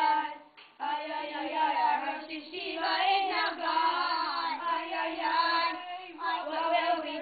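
Children singing a melody with long held notes, starting about a second in after a short break.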